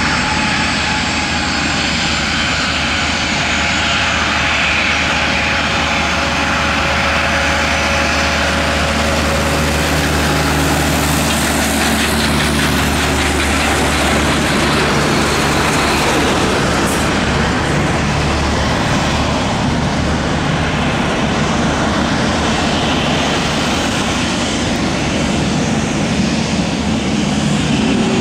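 Jet engines of a Boeing 737-800 freighter running steadily at taxi power as the aircraft taxis close by. The sound is a continuous loud rumble and hiss with a few held tones.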